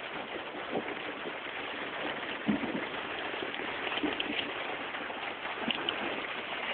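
Steady rain falling in a thunderstorm, an even hiss with a few brief taps scattered through it.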